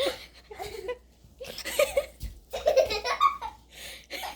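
People laughing and giggling in short bursts, with a brief lull about a second in.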